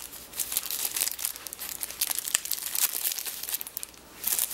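Thin plastic wrapping on a phone accessory crinkling as it is handled and unwrapped: a dense run of small irregular crackles that eases off briefly near the end.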